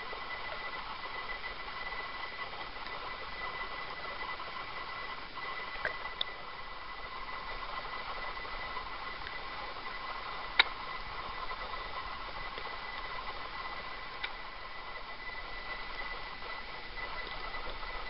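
Steady hiss with a faint high whine, as picked up by a camera filming underwater. A few small clicks, and one sharp click about ten and a half seconds in.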